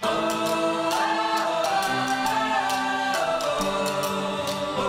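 Background music of held chords with a steady, light ticking beat, starting abruptly after a cut.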